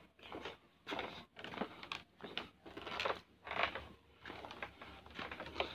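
Footsteps on a bamboo-pole footbridge: soft, irregular knocks and creaks of the poles, about two a second.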